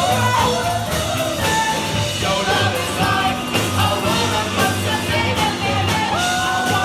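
Live rock band playing: drums, bass and guitars with a singer. A long held note comes in near the end.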